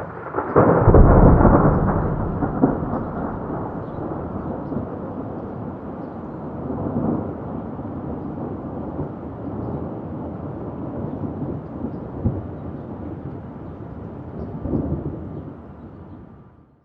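Thunder: a loud clap about a second in, followed by a long low rolling rumble that swells again twice and fades out near the end.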